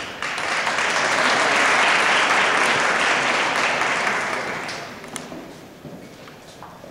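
Audience applauding, swelling quickly to a peak and then dying away over about five seconds.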